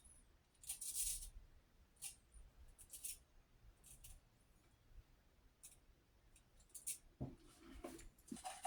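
Boar-bristle shaving brush working lather in a bowl: faint, short swishing strokes about once a second, coming quicker near the end.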